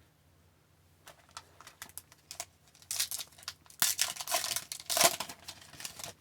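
The plastic wrapper of a hockey card pack being torn open and crinkled. A few light clicks come first, then a dense stretch of rustling and crinkling from about three to five seconds in.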